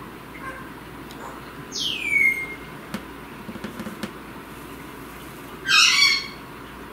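Goffin's cockatoo calling twice: a falling squawk about two seconds in, then a louder, harsh screech near the end.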